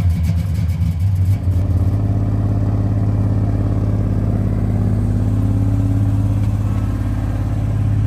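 Cold-started 1968 Chevelle engine idling, running rough on only about six of its cylinders. The sound settles into a steadier note about two seconds in.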